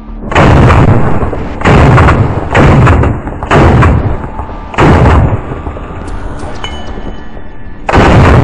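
Six loud rifle shots from an AR-15-style carbine, fired about a second apart at an uneven pace. After the fifth shot there is a pause of about three seconds before the last one. Each shot rings on for about half a second.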